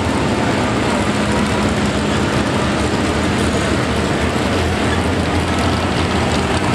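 Tractor engines running loudly and steadily, a deep even drone with no revving.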